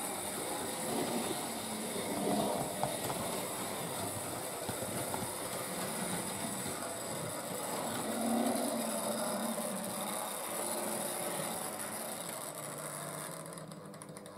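Hornby Dublo three-rail model trains running on loose-laid track: a steady whirring and rattling of the locomotives' motors and wheels, a little louder about two and eight seconds in, dying away near the end.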